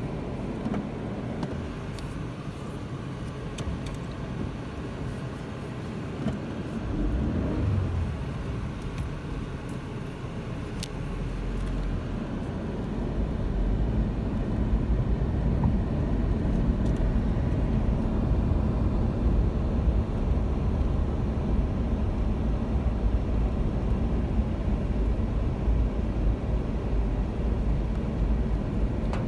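Car moving slowly on a wet road, heard from inside the cabin: a steady low rumble of engine and tyres that grows louder about twelve seconds in. A few light taps come in the first ten seconds or so.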